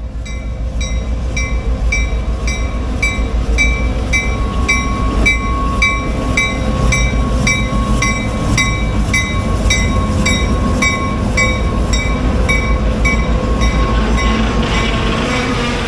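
Reading & Northern GP38-2 diesel locomotive, its EMD 16-cylinder two-stroke engine running with a steady low rumble. Over it the locomotive bell rings evenly, about twice a second.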